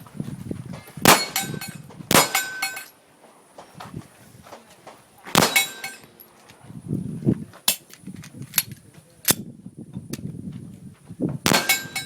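Smith & Wesson M&P Pro pistol shots fired at an uneven pace, about eight in all, with gaps of up to a few seconds between some of them. The louder shots ring on briefly after each crack, and two come close together near the end.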